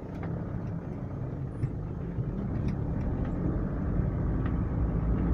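Vehicle driving along a rough road: a low rumble with scattered knocks and rattles, growing louder toward the end.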